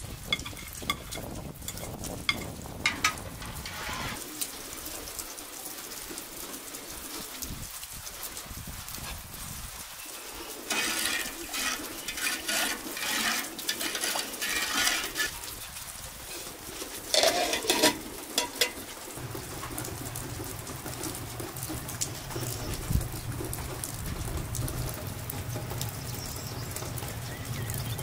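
Cooking sounds: a few light knocks as flour is tipped from a glass bowl into a metal pot, then a spoon stirring and sloshing liquid in the pot, with a few louder clatters. A low steady rumble takes over for the last third.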